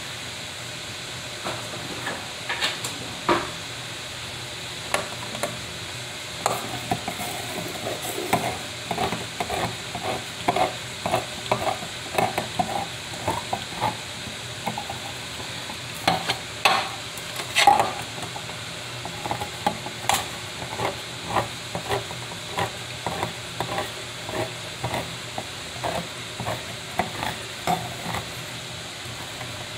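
Hand-held crank can opener being turned around the rim of a metal can, making a run of short clicks about once or twice a second, with a few louder metal knocks around the middle. A steady sizzle of simmering ground beef runs underneath.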